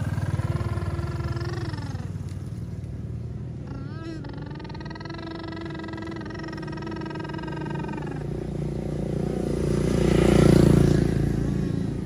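A motor vehicle engine running with a steady low rumble, and a vehicle passing close by, growing louder to a peak about ten and a half seconds in and then fading.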